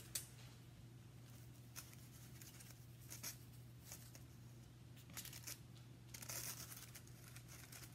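Near silence: a few faint, brief rustles and crinkles of gold leaf being picked up and laid on by hand, over a low steady hum.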